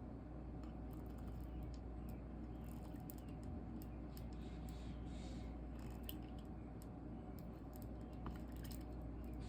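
Stained-glass soldering work: scattered light clicks and taps of the soldering iron and glass over a steady low electrical hum, with a brief soft hiss about five seconds in.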